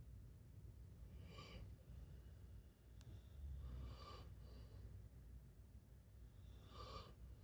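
A pet snoring faintly, with a short raspy breath about every three seconds, three in all.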